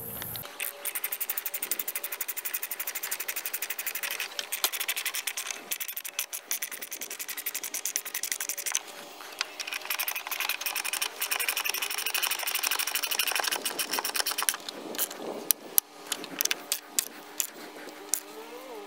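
Hand ratchet wrench clicking as a hot-dip galvanized lag bolt is cranked into a timber knee brace by hand: a long run of quick, even clicks. The clicks turn sparse and irregular in the last few seconds.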